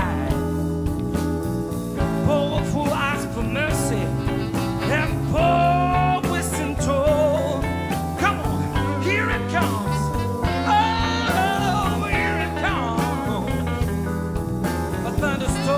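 Blues band playing live: an instrumental break with drums, bass and piano under a lead solo of bending, wavering notes.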